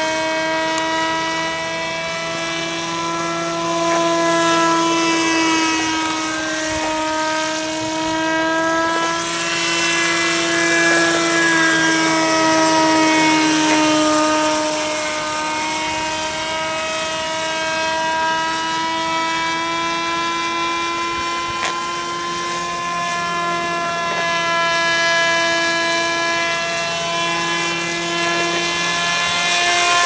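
Radio-controlled model autogyro's engine and propeller droning steadily in flight, the pitch sagging and rising slowly as it manoeuvres and passes overhead.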